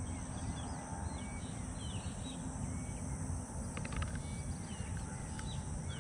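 Small birds calling: short whistled notes that dip and rise, several a second, with a brief rapid trill about two-thirds of the way through, over a steady low rumble.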